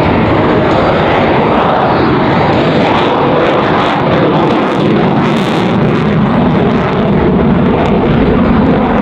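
Loud, steady jet noise from the F-22 Raptor's two F119 turbofan engines as it flies its display, with some crackling around the middle.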